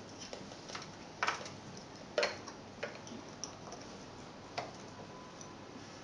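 Irregular plastic clicks and taps as a disposable apheresis tubing kit is snapped into the clamps and slots of a Fresenius Kabi COM.TEC cell separator, about seven in all, the loudest about two seconds in.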